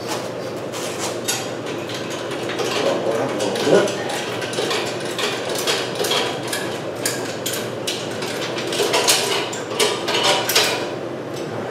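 Steel lifting chain and hook of an engine hoist clinking and rattling, with many quick metallic clicks, as the chain is handled and adjusted on the engine.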